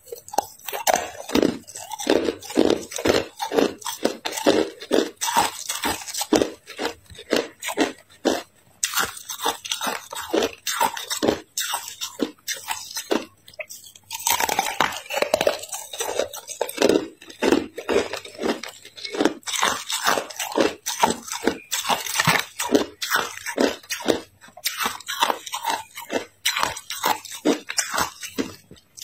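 Hard ice being bitten and chewed: a dense run of sharp, crackling crunches, with a short lull a little before halfway.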